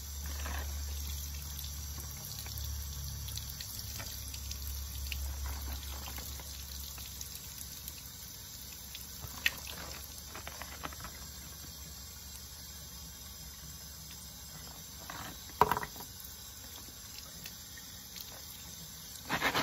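Tap water running steadily into a bathroom sink, splashing over hands in rubber scrubbing gloves that hold a bar of soap under the stream. There are two sharp clicks, the louder one about three-quarters of the way through.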